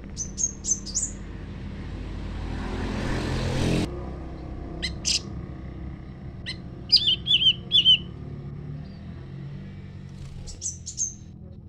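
Small songbirds calling in short high chirps, with a quick run of falling notes about seven to eight seconds in, then more high chirps near the end. A rising hiss builds over the chirps and cuts off suddenly about four seconds in.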